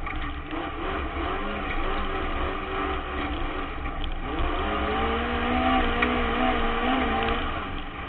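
Autograss race car's engine heard from inside the cockpit while racing, the note rising and falling with the throttle. It drops about four seconds in, then climbs again and holds before easing near the end. A couple of sharp knocks sound over the running rumble.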